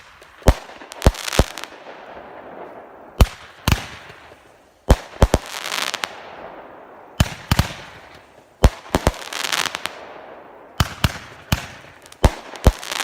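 Three Pyro Diablo 8-shot roman candles firing together from a rack: sharp shots and bursting breaks in quick groups every second or two, each group followed by a hiss that fades.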